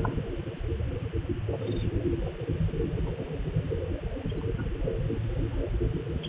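Steady low rumble and hiss picked up by a CCTV camera's microphone, with pigeons cooing faintly.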